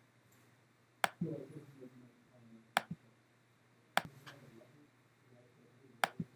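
Computer mouse clicks: four sharp, single clicks spaced one to two seconds apart.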